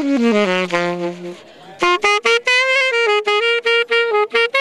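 Saxophone playing a quick solo riff: a fast run down to a low held note, a brief pause, then a string of short, detached repeated notes.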